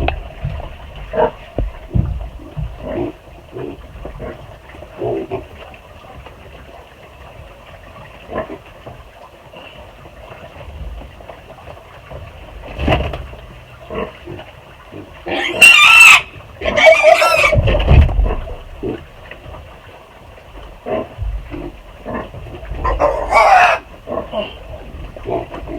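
Six-week-old piglets squealing loudly as they are picked up and carried, in two bouts: a long one past the middle and a shorter one near the end. Between them, quieter knocks and shuffling of handling in the pen.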